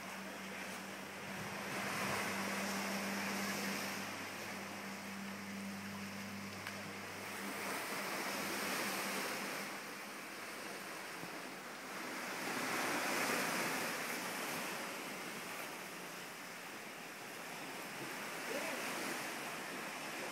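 Ocean surf washing in below, a steady hiss that swells louder about every four to five seconds. A low steady hum runs beneath it and stops about seven seconds in.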